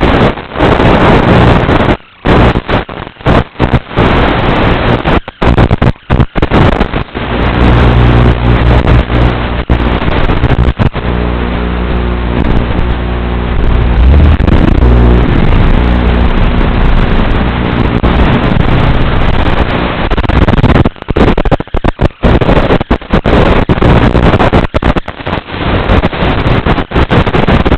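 Strong wind buffeting the microphone: a loud, heavy rumble that keeps cutting in and out. Through the middle stretch a low, steady hum runs underneath.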